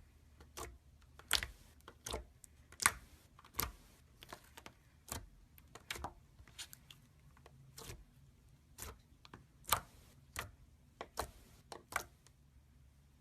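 Gold slime being worked by hand, giving irregular sharp clicks and pops, about one or two a second, that stop shortly before the end.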